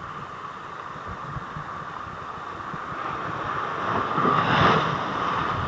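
Choppy sea water sloshing and splashing against a small boat, with wind on the microphone and a steady hum underneath. A wave splashes louder about four to five seconds in.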